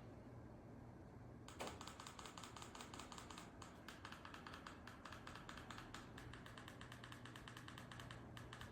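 Faint, rapid typing on a computer keyboard, a dense run of key clicks starting about one and a half seconds in, over a steady low hum.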